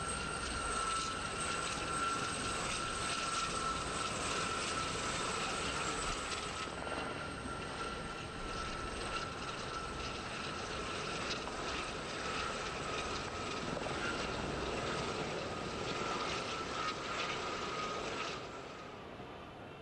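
Military helicopters flying overhead: a steady high turbine whine over a fast rotor chop, fading out abruptly about 18 seconds in.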